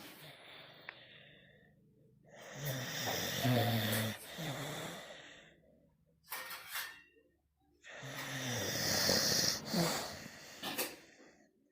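A Dogue de Bordeaux, a heavy short-muzzled mastiff, snoring in its sleep: two long, rough snoring breaths several seconds apart, with shorter breath sounds between them.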